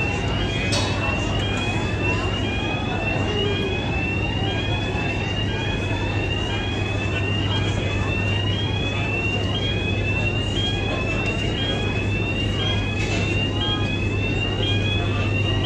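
Warning alarm on the Highspeed 7 fast ferry's opening hatch: a high electronic tone that rises in pitch and repeats a little more than once a second, over the steady low hum of the ship's machinery.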